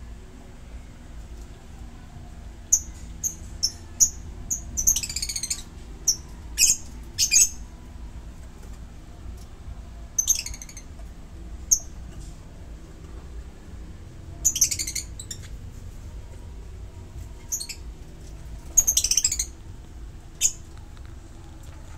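A flock of lovebirds, blue masked and Fischer's, giving short shrill chirps in scattered bursts, with a few longer rapid chattering calls about five, fifteen and nineteen seconds in.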